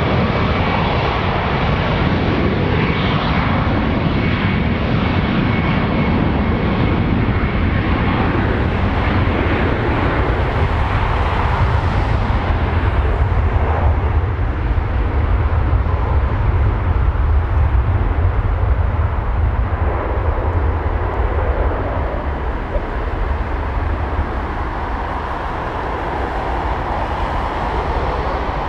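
Boeing 737 MAX 9's CFM LEAP-1B turbofan engines at takeoff thrust: loud, steady jet noise with a deep rumble and a thin high whine in the first several seconds, easing slightly near the end as the jet lifts off.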